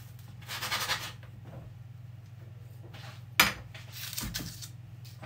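Cut-out gingerbread dough shapes being handled on a floured worktop and baking tray: a scraping rustle about half a second in, a sharp clack a little past three seconds in, then more rustling, over a steady low hum.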